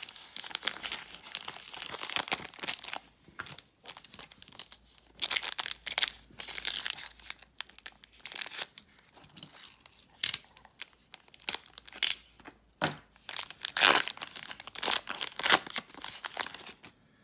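Foil trading-card pack wrapper crinkling and tearing as it is ripped open and handled. It comes in irregular bursts, loudest in the second half.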